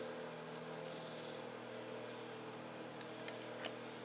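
Steady low electrical hum, with a few faint light ticks near the end as a screwdriver works the small side-plate screws of a Ryobi spinning reel.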